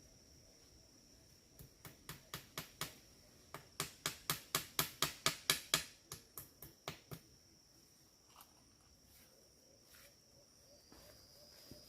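A run of about twenty sharp, evenly spaced clicks, roughly five a second, growing louder then fading away, over a steady high-pitched insect drone.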